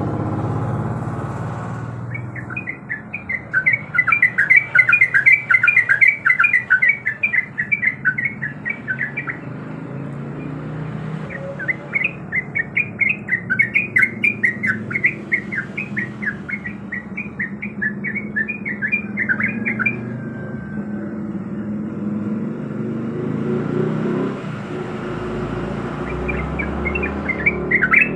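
Yellow-vented bulbul (trucuk) singing in long runs of quick, bubbling chirped phrases, with a pause of a couple of seconds between runs. A steady low rumble runs underneath.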